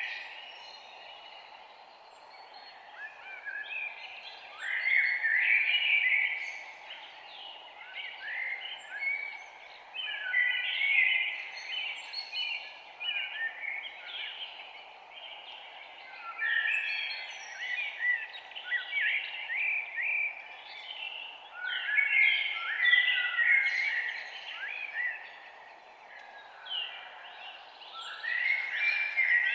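Several small birds chirping and twittering in overlapping bouts that come and go every few seconds, over a steady low background hiss.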